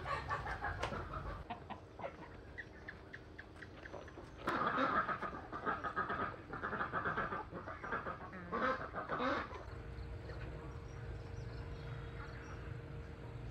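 Farmyard poultry calling, a run of loud calls from about four and a half seconds in until about nine and a half seconds. A faint steady hum follows.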